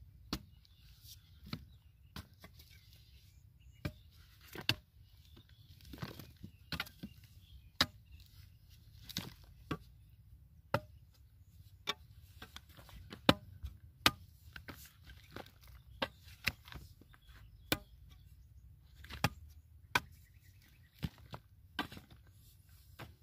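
A digging tool chopping repeatedly into hard, dry, cracked clay, breaking it into clods: sharp dull strikes at irregular intervals of about one a second.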